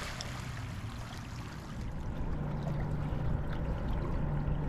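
Loch water lapping at the shore, with a steady low hum underneath that grows a little louder about two seconds in.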